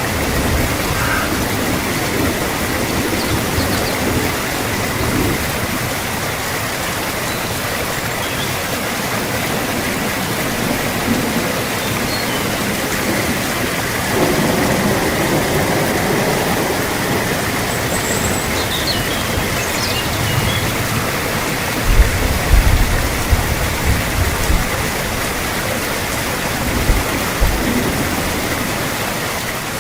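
Steady rain, an even hiss. Several short, low rumbling thumps come about two-thirds of the way through and again near the end.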